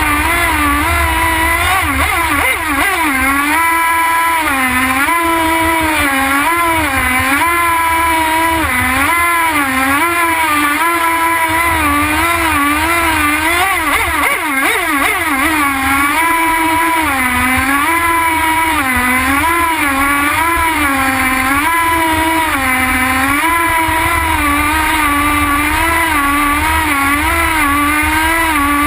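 Nitro RC boat's small glow-fuel engine running at high revs, heard from on board, its high-pitched whine rising and falling about once a second.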